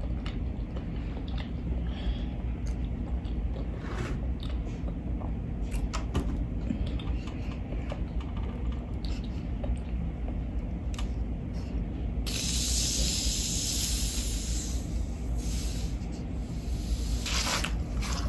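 A few light clicks, then, about twelve seconds in, a plastic Fanta soda bottle's cap is twisted open and the carbonation hisses out for several seconds, the hiss coming and going as the cap loosens.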